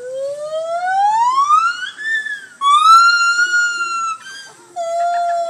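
A gibbon howling: a long call whose pitch rises steadily for about two seconds, then a higher held note, then a lower note that slowly falls away near the end.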